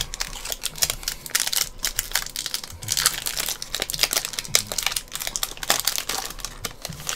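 Foil wrapper of a hockey trading card pack crinkling and tearing as it is ripped open by hand, a dense run of crackles.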